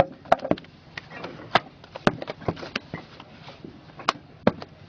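Irregular sharp knocks and clacks of paving blocks being set down and tapped into place by hand, several a second at times with short gaps between.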